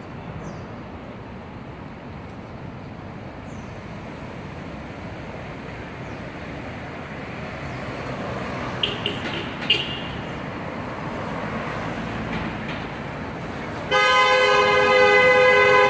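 City street traffic with a steady hum of passing cars, two short high chirps in the middle, then a car horn held for about two seconds near the end, the loudest sound.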